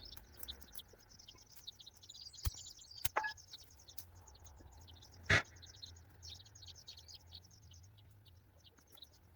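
A mattock striking into the ground while digging out a bramble: three thuds, the third and loudest about halfway through, against a steady high chirping.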